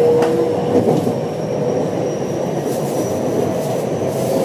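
Running noise of a moving train heard from inside the passenger car: wheels rumbling on the rails, with a steady whine that stops about a second in and a few faint clicks from the track.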